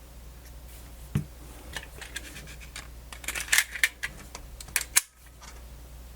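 Handling noises from small hardware being worked on by hand: one low knock about a second in, then a quick run of sharp little clicks and scratches.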